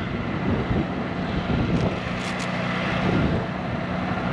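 A vehicle engine running steadily, a low even hum that settles in about a second and a half in. Two faint clicks come just past halfway.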